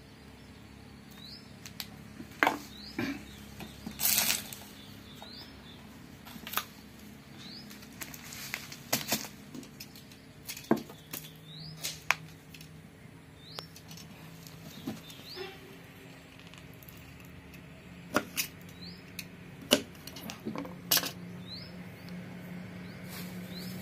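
Scattered clicks and light knocks of hands and a grafting blade working at a potted adenium rootstock. Through it, a faint short high chirp that rises in pitch repeats about every second and a half.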